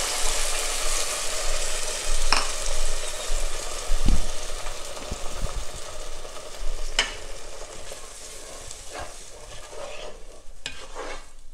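Tomato purée sizzling in hot oil and garlic paste in a pot, the sizzle gradually dying down, with a couple of sharp knocks. Near the end a wooden spatula stirs the purée.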